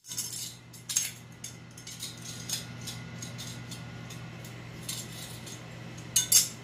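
A plastic spoon clattering across a glazed tile floor as kittens bat at it: irregular light taps and clicks, with louder clacks about a second in and twice near the end. A faint steady hum runs underneath.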